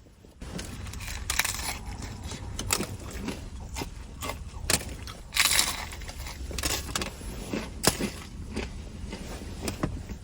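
Close-up crunching and chewing of a hard-shell taco: a quick, irregular run of crisp crunches, over a steady low hum.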